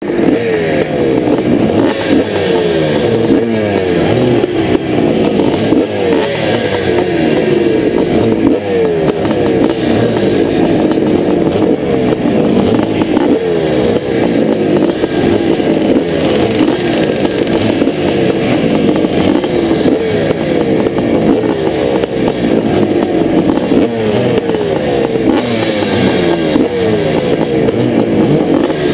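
Several vintage two-stroke motocross bikes revving their engines while standing still on the start line, throttles blipped up and down over and over. The nearest is a 1983 Honda CR480R's big single-cylinder two-stroke.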